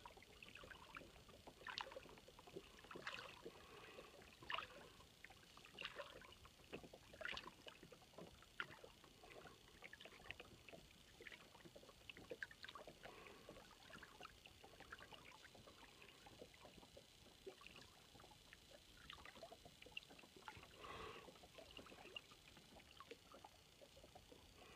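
Water lapping faintly against the hull of a small lug yawl sail-and-oar boat afloat: irregular little slaps and trickles, a second or two apart.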